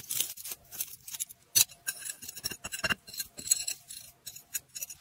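Metal tongs gripping a freshly cast silver farm tool and dragging it out of a sand mould: irregular scraping of sand with sharp metallic clicks and clinks, two of them louder, about a second and a half and three seconds in.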